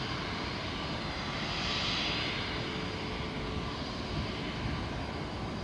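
Distant jet airliner engine noise, steady, with a slight swell about two seconds in.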